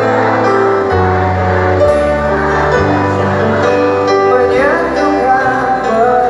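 Live band music amplified over a concert PA system: long held bass notes changing about once a second under sustained instrument chords.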